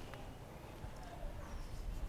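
Quiet outdoor ambience: a low rumble with a few faint, short bird chirps.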